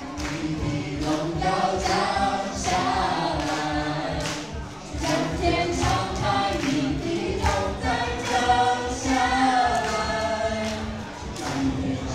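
A small group of voices singing a Christian worship song together into microphones, over music with a steady beat.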